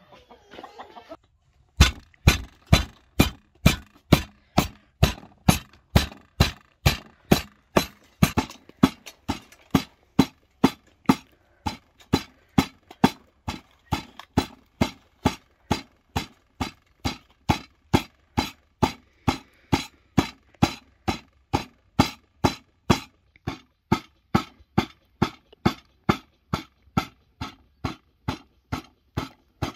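Kitchen knife chopping raw meat on a wooden cutting board: steady, even knocks at about two strokes a second, starting about two seconds in.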